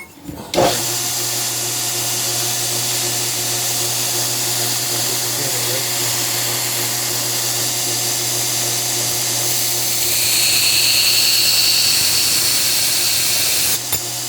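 A 2x72 belt grinder switched on about half a second in and running steadily with a motor hum and belt hiss. Near the end, the blade of a hardened hunter knife is pressed against the belt, adding a brighter, louder grinding hiss as the swedge is ground.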